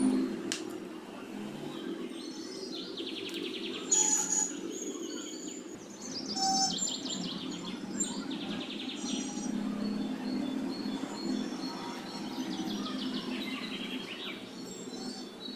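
Small birds chirping in quick repeated trills several times, over the faint sizzle of food frying in hot oil in a kadhai.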